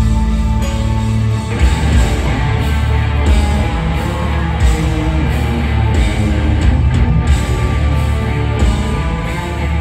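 Heavy rock band playing live in an arena, heard from among the audience. A held keyboard chord gives way about a second and a half in to loud distorted guitars, bass and drums.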